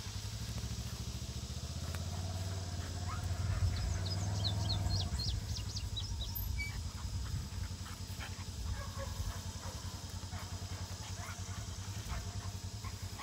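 A motor engine drones steadily, swelling over a few seconds and then easing off, while birds chirp briefly about four seconds in.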